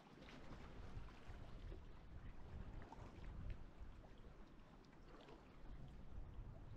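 Quiet paddle strokes of a sea kayak on calm water, the blade dipping on alternate sides, with faint splashes and drips off the blade over a low rumble.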